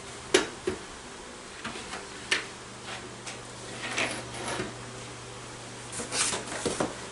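Short knocks and rattles of a plug-in thermostat controller and its power cords and plugs being handled and set down on a steel welding table, a handful of separate clatters over a steady low hum.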